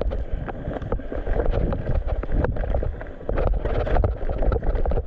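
Mountain bike riding down loamy dirt singletrack: tyres rolling over the dirt, with the frame and chain rattling and knocking irregularly over bumps and wind rumbling on the microphone.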